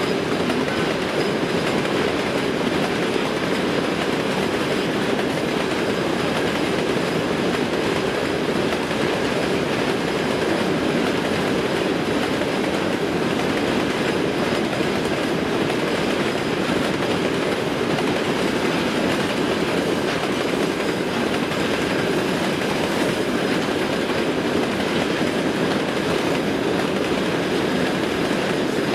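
A long freight train of hopper wagons rolling past, making a steady rumble of wheels on rail that holds even throughout.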